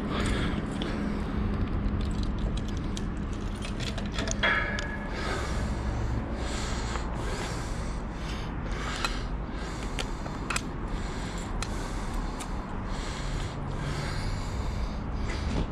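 A cyclist's heavy breathing while pedalling hard, quick even breaths a little under a second apart, over a steady low rumble, with a few sharp clicks.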